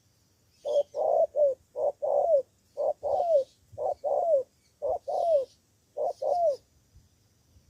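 Spotted dove (cu gáy) cooing: about six repeated phrases, each a short coo followed by a longer coo that falls in pitch.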